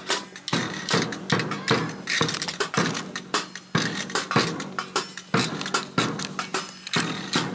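Live band percussion: drums and other hand percussion struck in a fast, uneven beat, several sharp hits a second.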